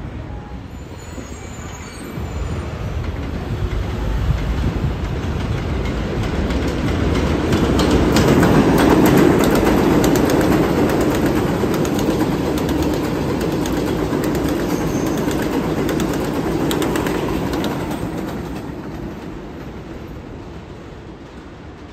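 New York City subway 6 train running past on the elevated line. A steady rumble builds, peaks about eight to ten seconds in with wheels clattering over the rail joints, holds, then fades away near the end.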